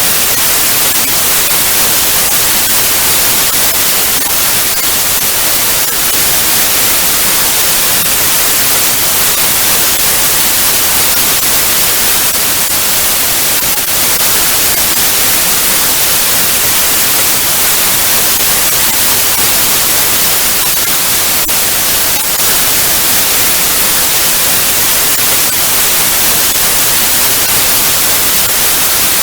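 Analog TV static: a steady, loud hiss of white noise, brightest in the treble, with faint crackling flickers through it.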